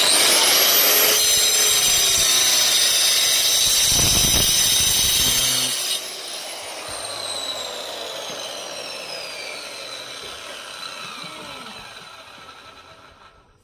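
A power tool running loudly, switched off about six seconds in and winding down with a falling whine until it fades out.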